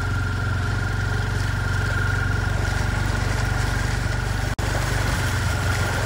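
A motor vehicle's engine running steadily, with a fast even low pulse and a thin steady whine above it. The sound drops out for an instant about four and a half seconds in.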